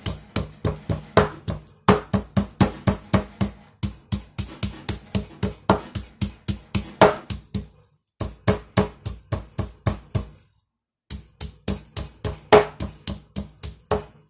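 Metal meat mallet beating chicken breast fillets through plastic film on a wooden cutting board. The blows are quick and even, about five a second, in runs broken by short pauses, with a longer stop about two-thirds of the way through.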